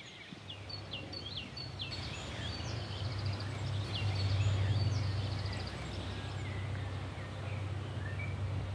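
Small birds singing, with many short high chirps and quick trills, over a low steady rumble that swells about four seconds in and then eases.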